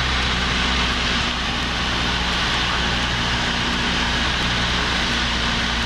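Cessna 172P's four-cylinder Lycoming engine and propeller droning steadily in flight, heard inside the cabin with a steady hiss of air noise over it.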